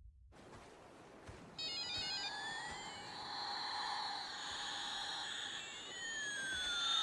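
Electronic, music-like sound effect over a steady hiss: a quick stepped run of high beeps, then pairs of tones sliding up and down past each other, the pattern repeating before it cuts off suddenly near the end.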